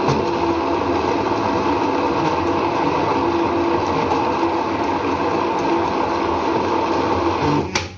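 Electric mixer-grinder blending dates and milk in a small jar, its motor running steadily and switching off suddenly near the end.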